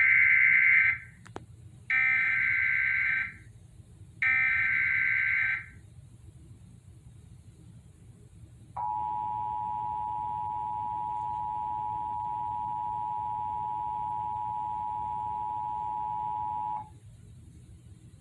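Emergency Alert System SAME header: three bursts of shrill digital data warble, each about a second long, then after a pause a steady attention tone held for about eight seconds, which announces a weather warning about to be read out.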